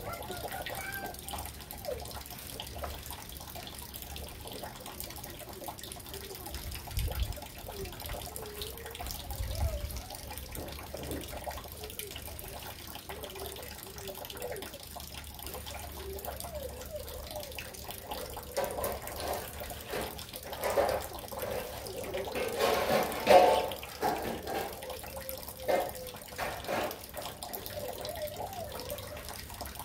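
Scattered clicks and knocks of hands working a Stihl chainsaw's guide bar and chain while setting the chain, thickest in a cluster about two-thirds of the way through, over a steady faint hiss.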